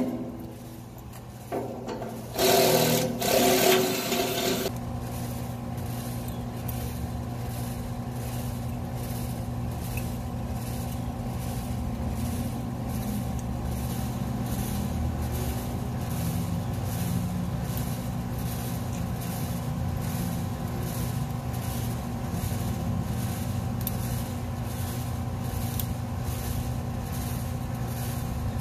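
A loud burst of metallic rattling and scraping from the aluminium hurricane shutter work, lasting about two seconds near the start. After it comes a steady mechanical hum with faint regular ticking.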